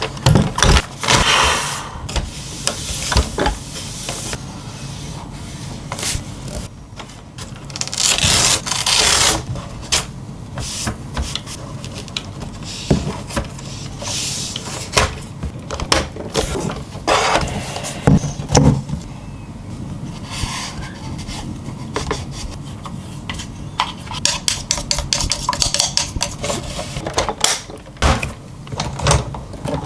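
Dust being cleaned off an iRobot robot vacuum's plastic parts: irregular rubbing and scraping strokes, some lasting a second or so, among many short clicks and taps.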